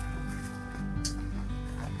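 Background music with held notes that change pitch every fraction of a second.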